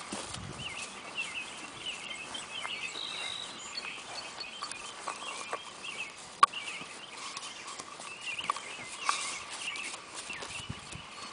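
Birds chirping and twittering, many short quick calls following one another without a break, with a few sharp knocks in among them, the loudest about six seconds in.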